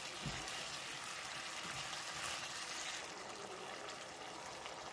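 Beef in a thick sauce sizzling and bubbling in a nonstick frying pan, stirred with a spatula that knocks against the pan a couple of times early on; the hiss eases a little about three seconds in and carries on as a steady simmer.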